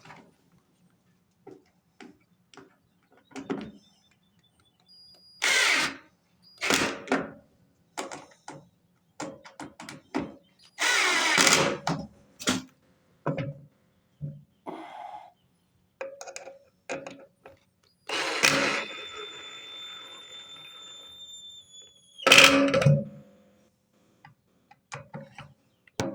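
Handling noises while unpacking a wet/dry industrial vacuum cleaner: a long run of irregular clicks, knocks and short rustling bursts from packaging and plastic parts. About 18 s in, a loud burst gives way to a quieter steady sound with a thin high whine lasting a few seconds, cut off by another loud burst.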